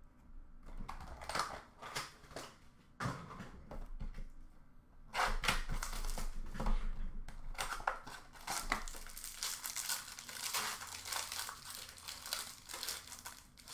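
Foil and plastic wrapping of a hockey trading-card pack crinkling and tearing as it is opened by hand: a run of crackles and rustles, busiest in the middle.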